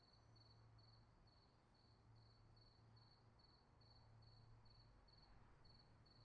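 Near silence: a faint steady hum under a very faint high tone that pulses a few times a second.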